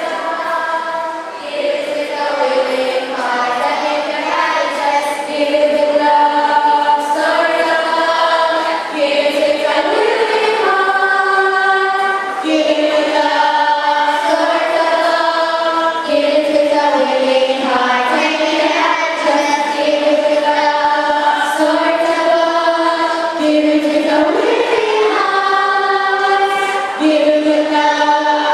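Choir singing a hymn in held notes that change every second or so.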